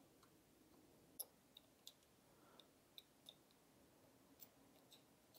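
Faint, irregular small clicks, about ten in five seconds, of a pocket watch movement and its metal movement holder being handled, against near silence.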